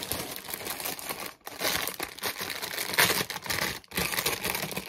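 Clear plastic poly bag crinkling and rustling as a sweatshirt is pulled out of it, loudest about three seconds in.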